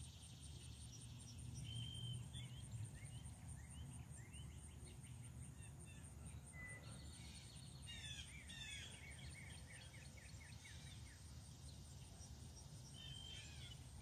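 Faint songbirds chirping and trilling, with a quick run of repeated notes about eight seconds in, over a steady, high, evenly pulsing buzz.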